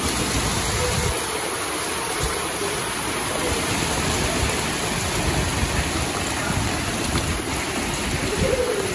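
Very hard rain mixed with hail pouring down onto rooftops: a loud, steady, dense hiss with an uneven rumble underneath.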